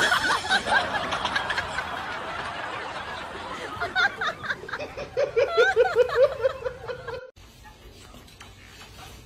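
People laughing, ending in a quick run of rhythmic ha-ha-ha laughter that cuts off suddenly about seven seconds in.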